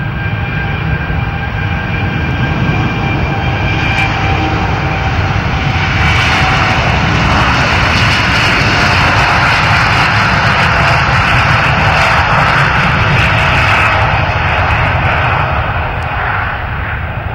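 Boeing 787 jet engines (Rolls-Royce Trent 1000) at takeoff power on the takeoff roll: a steady whine with several held tones over a broad rumble. It swells about six seconds in as the jet passes, stays at its loudest for several seconds, then fades near the end as the aircraft rolls away.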